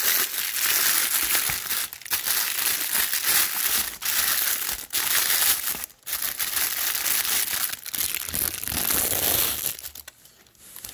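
Clear plastic wrap crinkling as it is pulled and peeled off a cone air filter, with brief breaks every couple of seconds, dying down near the end.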